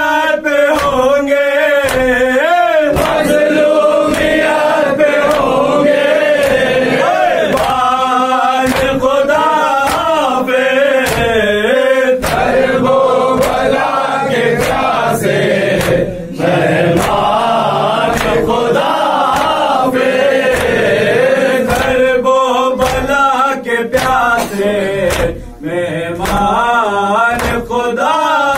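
Group of men chanting a nauha, a Shia lament, in unison, kept in time by a steady beat of sharp chest-slaps (matam). The chanting drops out briefly about halfway through and again near the end.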